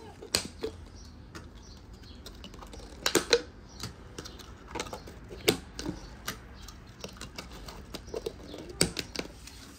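Clear plastic dome lids pressed and snapped onto filled plastic cups: a series of sharp, irregular plastic clicks and crackles, the loudest a little after 3 seconds, about halfway, and near the end.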